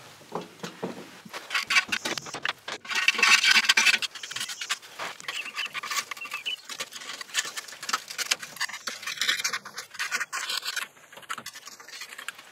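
Packed mud being scraped out from around a Chevy pickup's flywheel and torque converter: irregular scratching and scraping with scattered clicks.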